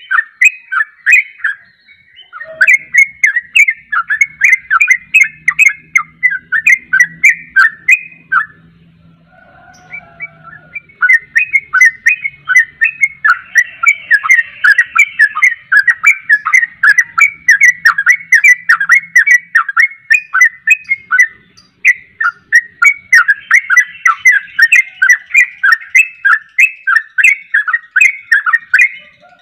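Yellow-vented bulbul (trucuk) singing its fast, continuous 'ropel' song: a long run of short, chattering notes, several a second, broken by a pause of about two seconds partway through.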